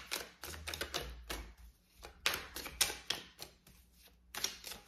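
A deck of cards shuffled by hand: several quick runs of crisp, papery clicking flicks, with short pauses between runs.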